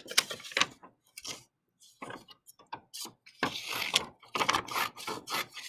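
Scissors snipping through a paper worksheet in a series of short, irregular cuts.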